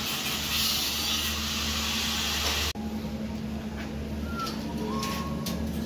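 Construction-site noise: a steady loud hiss from site equipment cuts off abruptly about halfway through. Quieter site noise follows, with a few light clicks and short faint chirps.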